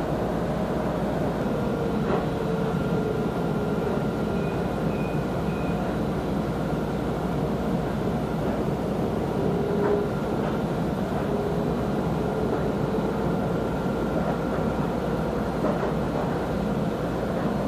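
Steady ride noise inside a moving tram car: an even rumble and hiss from the running tram, with faint whining tones that come and go.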